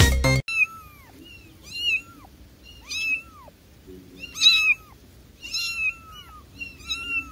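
A kitten meowing repeatedly: about seven short, high-pitched mews, roughly one a second, each rising and then falling in pitch.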